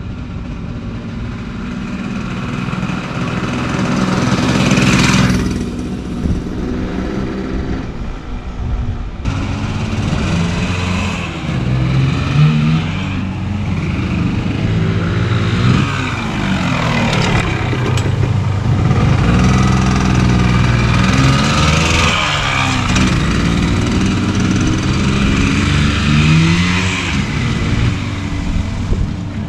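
1974 Yamaha Enduro's two-stroke single-cylinder engine under way on a ride, revving up and falling back again and again as the rider works the throttle and gears.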